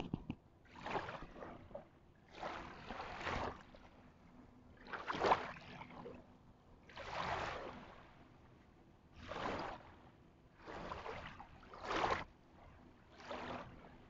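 Small sea waves lapping on a pebbly shore, a soft wash of water over the stones every second or two.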